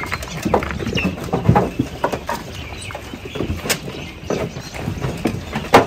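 A flock of sheep eating dry feed at a trough: irregular crunching, chewing and clatter from many muzzles at once, with hooves shifting on the ground.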